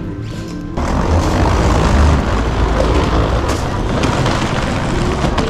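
Suitcase wheels rolling over a tiled floor: a steady rattling rumble that starts suddenly about a second in.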